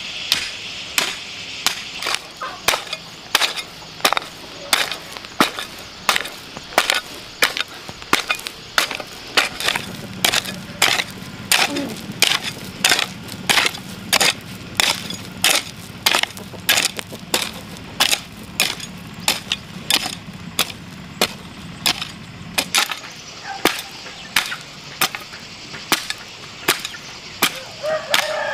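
A hoe chopping into dry, loose soil again and again, about two strokes a second, each a short thud and scrape as the blade breaks up the clods. A rooster crows near the end.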